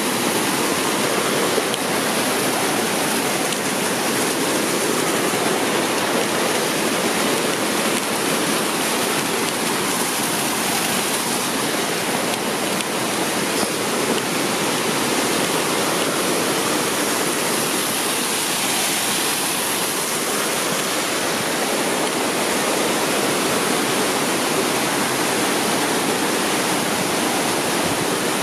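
Mountain stream rushing and cascading over rocks in a steady, unbroken roar of white water.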